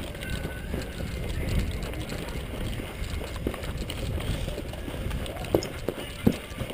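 Steady low rumble of movement and wind on a body-worn camera's microphone during an airsoft game, with two short sharp pops in the last couple of seconds.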